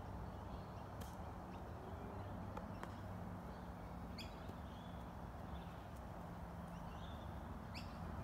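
Faint outdoor ambience: a few short bird calls over a low, steady background rumble, with footsteps on grass.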